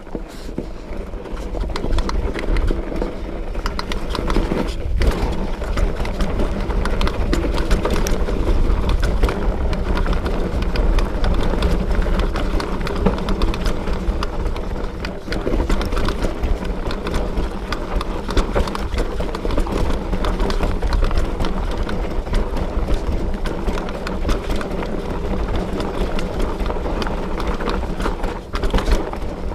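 Fat bike with 4-inch 45NRTH Vanhelga tyres being ridden on a trail, heard from a camera on the bike or rider: a steady wind rumble on the microphone under constant rattling and clicking from the tyres and the bike.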